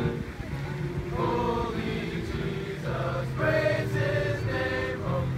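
Music: several voices singing a choir-like chant in short phrases over low held notes that step from pitch to pitch.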